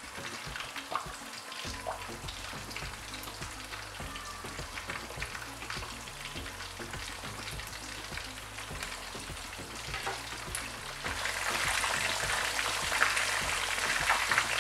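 Whole masala-coated pomfret deep-frying in hot oil: a steady sizzle with small crackling pops, getting louder about eleven seconds in.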